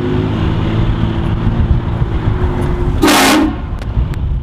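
Car-mounted air train horns blowing a steady multi-tone chord over a low engine rumble. About three seconds in, a short, louder burst of noise cuts in, with the chord dropping lower beneath it.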